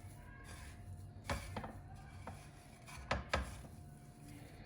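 A kebab patty being coated in breadcrumbs: quiet handling with two pairs of light knocks against a dish, about a second in and about three seconds in.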